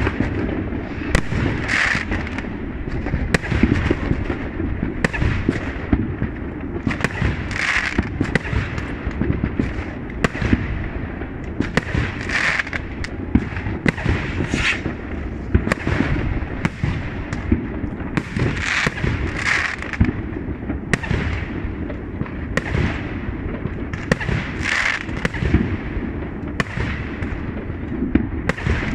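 Fireworks display: aerial shells going off in a rapid, unbroken run of bangs and crackles, several every couple of seconds, over a continuous low rumble.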